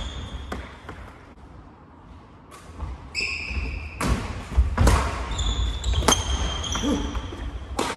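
Badminton doubles rally: sharp racket strikes on the shuttlecock and footfalls about a second apart, with short high sneaker squeaks on the wooden court floor, all echoing in a large sports hall.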